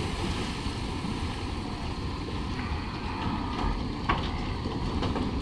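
Steady wind rumbling on the microphone over river water, with splashing as a cow drops from a cattle barge into the river near the start. A single sharp knock comes about four seconds in.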